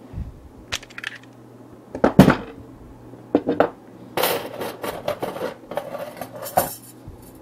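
Metal clinking and clattering, a run of sharp knocks and rattles with the loudest knock about two seconds in: bent stainless steel rod sections and hand tools being picked up and set down on a workbench.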